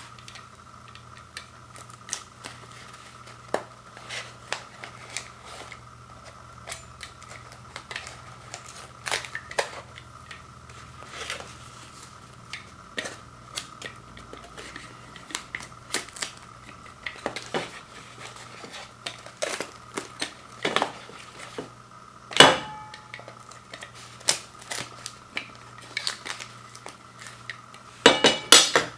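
Cutlery and dishes being handled: irregular light clicks and taps, with one louder knock about two-thirds of the way through and a quick cluster of knocks near the end.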